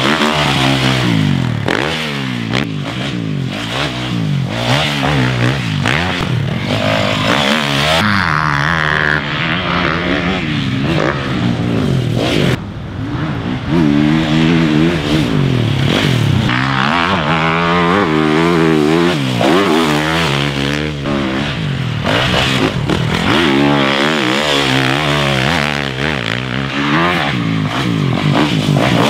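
Yamaha YZ450F motocross bike's 450cc single-cylinder four-stroke engine being ridden hard, its pitch climbing and dropping again and again as the throttle opens and closes.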